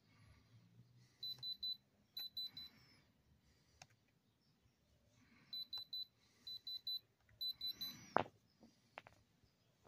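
Handheld Diamond Selector II gem tester beeping in five quick runs of about three high beeps each as its probe is pressed against a stone. The beeping is the tester's signal of a reading in its diamond range. A handling knock comes near the end.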